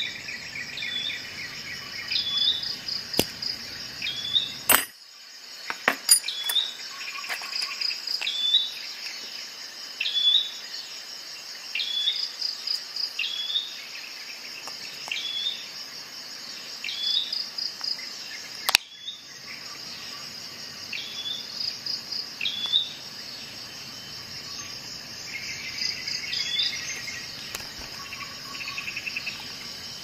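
Steady chorus of insects chirping in a continuous high pulsing trill, while a bird repeats a short rising chirp about once every second or so. A few sharp clicks of metal tool parts being handled cut through, the loudest a little past the middle.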